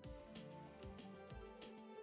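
Faint background music with sustained notes over a steady beat.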